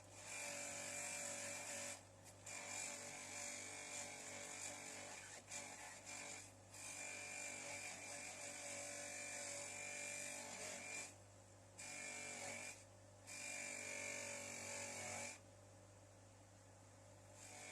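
Electric polisher running with a steady motor whine while spanners are buffed on it. The whine cuts out abruptly several times and mostly fades near the end.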